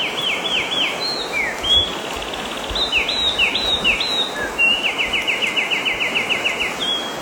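Bird song: series of short, sharply falling whistled notes, then from about halfway a rapid even trill of about eight notes a second, over a steady background hiss.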